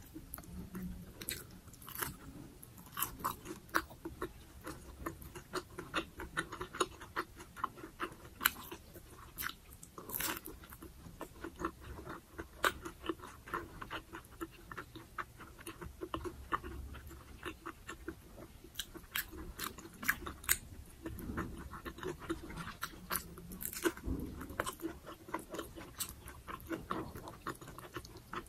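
Close-miked chewing of crispy fried dynamite lumpia (chili peppers rolled in spring-roll wrapper), with irregular sharp crunches several times a second and wet mouth sounds in between.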